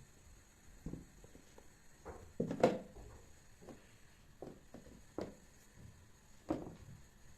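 Soft kitchen handling sounds: light knocks and rustles of items being set down and moved, with a sharper knock about two and a half seconds in and a few more later.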